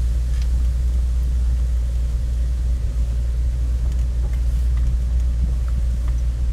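Car driving downhill on a dirt road, heard from inside the cabin as a steady low rumble of engine and tyres, with a few faint clicks.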